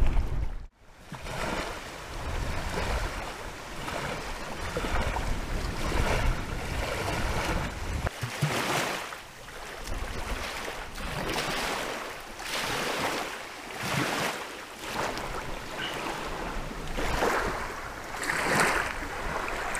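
Small wind-driven waves washing onto a sand beach: a rushing that swells and fades every second or two, after a brief silence at the start.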